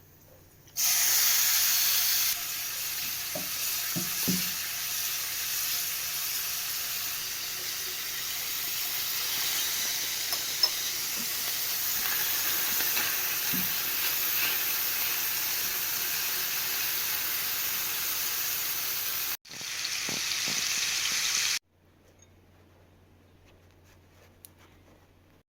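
Food sizzling in a frying pan: a steady hiss that starts abruptly about a second in, breaks off for a moment near the end, then resumes briefly and stops suddenly.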